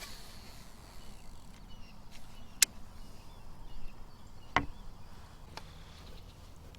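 A few sharp clicks or knocks over a faint, steady outdoor background. The one about four and a half seconds in carries a dull thump.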